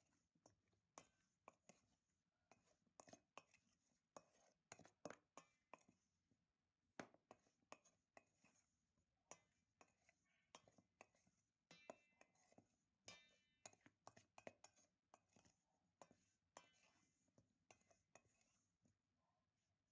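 Faint, irregular wet slaps and clicks, several a second, as raw chicken wings are mixed by hand into a cornstarch coating in a stainless steel bowl.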